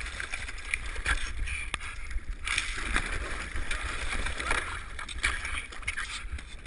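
Icy lake water splashing and sloshing around a skier who has fallen through thin ice and is struggling in the hole.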